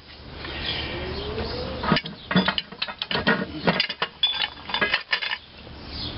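Steel parts of a cylinder puller clinking and clanking as it is taken apart: the nut, washers and all-thread rod knocking against the channel iron and the engine's cast iron. A scraping, rising sound comes first, then a quick run of sharp metal clinks.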